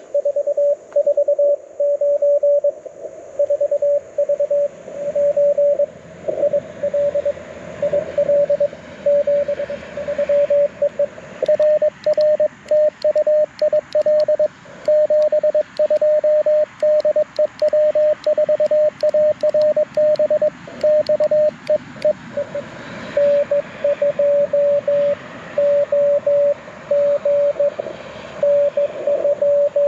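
Morse code (CW) from a Mountain Topper MTR4B V2 QRP transceiver: a single steady beep keyed on and off in dots and dashes over a faint hiss of band noise. In the middle stretch the keying comes faster and more choppy.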